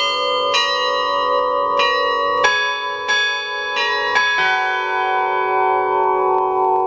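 Bells ringing a slow, uneven run of struck notes, each one left ringing under the next. The last strikes come about four seconds in, and the notes then hang on together and begin to fade.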